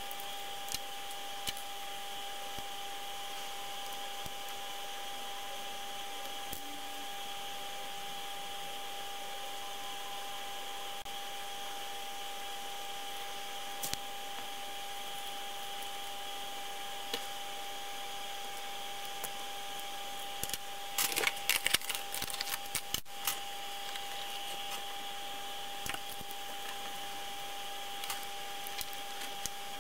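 Small clicks and scrapes of a tiny CRT viewfinder assembly being handled and pried apart with a small screwdriver, including a short burst of rapid scraping and clicking about two-thirds of the way through. Under it runs a steady hum with a high whine.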